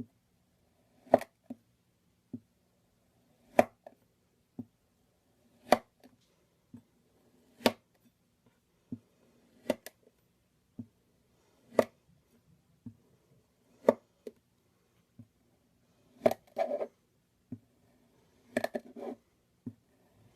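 A blade cutting through kinetic sand: a sharp chopping tap about every two seconds, with softer taps between. Twice near the end there is a short crumbly scrape.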